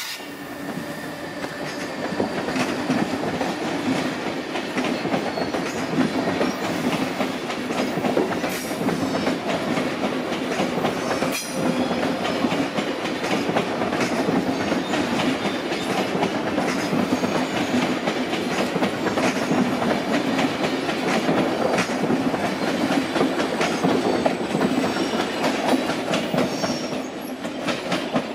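A train of SBB passenger coaches rolling past at low speed: a steady rumble of wheels on rails with the clickety-clack of wheels over rail joints.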